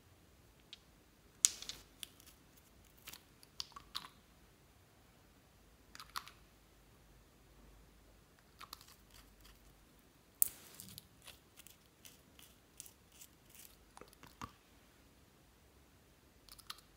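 Clear slime being squeezed and stretched by hand, giving irregular sticky clicks and small crackling pops, the sharpest about one and a half seconds in and a denser run of clicks in the second half.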